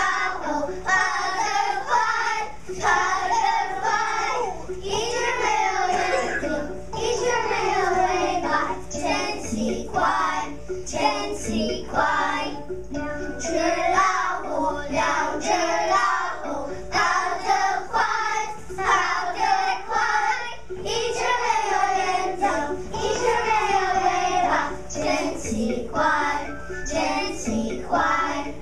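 A class of first-grade children singing a song together in unison.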